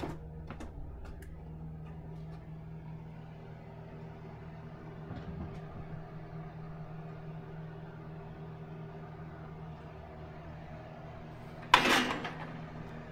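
Steady low mechanical hum, with a few footsteps near the start and a single loud thump near the end.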